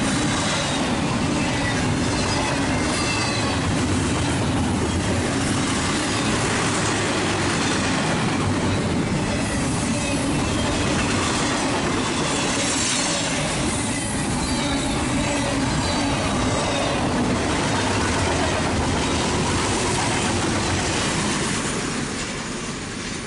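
Double-stack container train rolling past close by: a steady rumble and clatter of steel wheels on the rails, with a thin wheel squeal in the first few seconds. The sound falls away near the end as the last cars pass.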